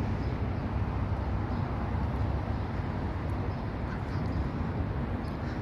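Outdoor background noise: a steady low rumble with no distinct events.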